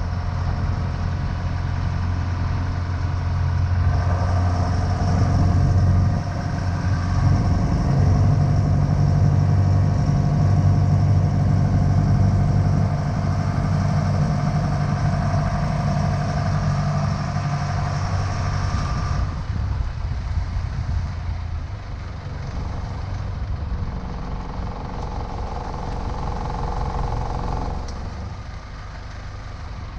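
Small powerboat's engine running under way during a man-overboard recovery manoeuvre, with a steady hum. It is throttled back about two-thirds of the way in, and again near the end, as the boat slows to come up to the casualty.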